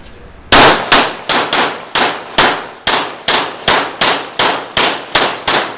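Pistol fired in rapid succession on an indoor range: about fifteen shots, roughly three a second, starting about half a second in. Each shot has a short echo off the concrete walls.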